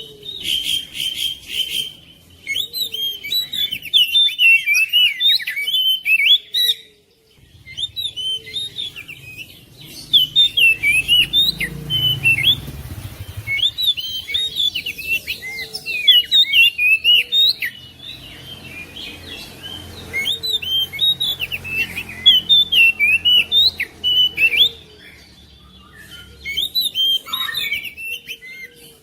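Oriental magpie-robin (kacer) singing a rapid, varied song of whistled and chirped notes that slide up and down, in long phrases with short breaks about seven seconds in and again near the end.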